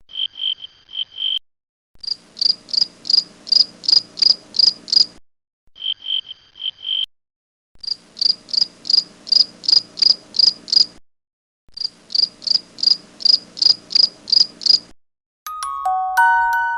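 Grasshopper stridulating in repeated pulsed phrases, each a short run of lower chirps followed by a longer run of higher chirps at about three a second, with clean pauses between phrases. A glockenspiel tune starts near the end.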